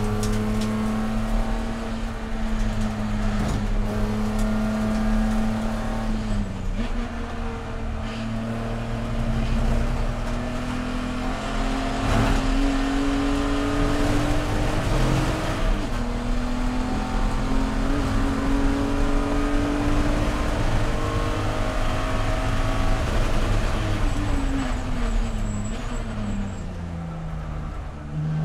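Engine of a BMW E46 Spec E46 race car heard from inside the cockpit. It runs steadily in fourth gear under part throttle, with road and tyre noise, and its pitch drifts slightly up and down. Over the last few seconds the revs fall away as the car slows.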